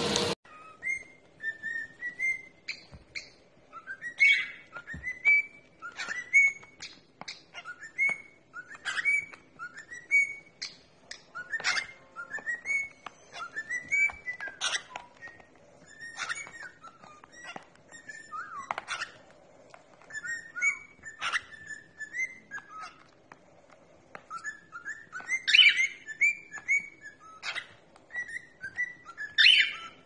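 Cockatiel whistling short chirpy phrases over and over, each sliding up and down in pitch, with sharp clicks in between.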